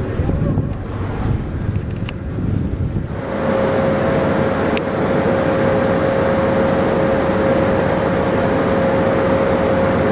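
Slipway winch machinery hauling the boat cradle up the rails on its chain: low rumbling at first, then about three seconds in a steady mid-pitched whine with a loud rushing noise sets in and holds.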